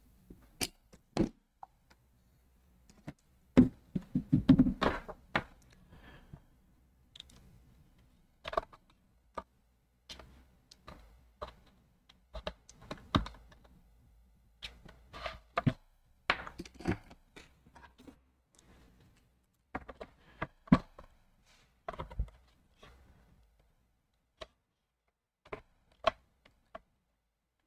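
Irregular light clicks, taps and knocks of hand tools being handled at an electronics repair bench, with the loudest knocks about four seconds in.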